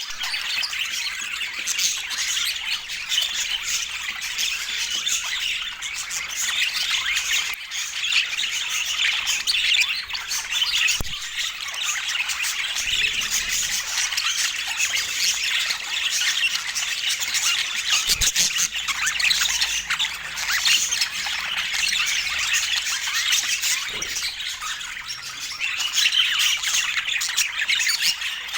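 Budgerigars chattering and squawking continuously, a dense run of rapid warbles and squawks with no pause. A few brief low knocks come through under the chatter.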